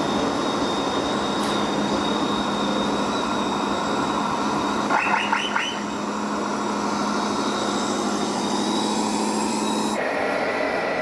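Radio-controlled model truck running, a steady hum and thin high whine over mechanical noise, with four quick high chirps about halfway through. The sound changes abruptly near the end.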